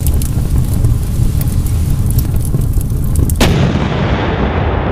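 Intro sound effect: a loud, rumbling fire with crackles, then a sudden explosion boom about three and a half seconds in that dies away into a rushing tail.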